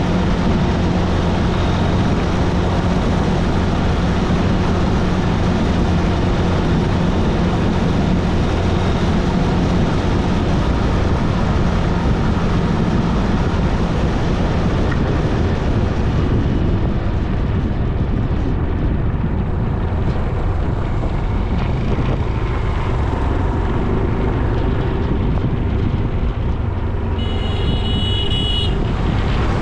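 Motorcycle riding on a road: a steady engine drone under heavy wind and road noise on the mic. A short high tone with several pitches, like a horn, sounds for about a second and a half near the end.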